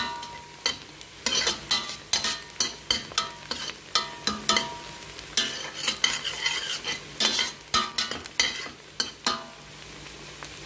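A metal spatula scrapes and clinks against a stainless steel pot in irregular strokes, stirring chopped onion and garlic frying in oil, over a faint sizzle. The stirring stops about a second before the end, leaving only the sizzle.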